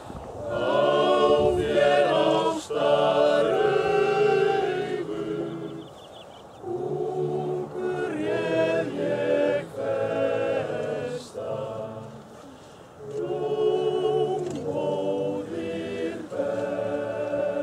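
Men's choir of about twenty voices singing a cappella in parts, phrase by phrase, with short breaks between the phrases.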